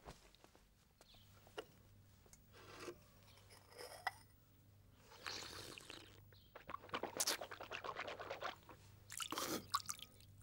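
A man eating from a bowl held to his mouth: slurps and mouth noises, with a run of quick clicks against the bowl in the second half.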